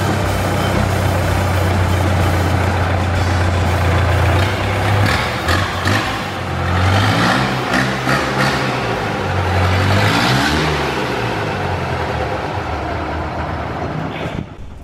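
A rat-rod truck's diesel engine runs while the truck is driven. It holds a steady note at first, then the revs rise and fall a few times through the middle before the sound fades near the end.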